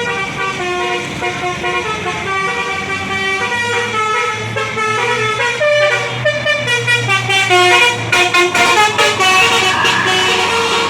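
Bus's Basuri telolet horn, a multi-tone melodic horn, playing a tune of quick stepping notes, with a low engine hum underneath through the middle. Near the end the notes come in fast on-off pulses.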